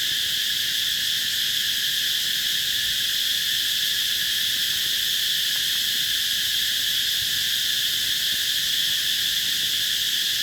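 Cicadas in full chorus: a very loud, steady high-pitched buzz that goes on without a break.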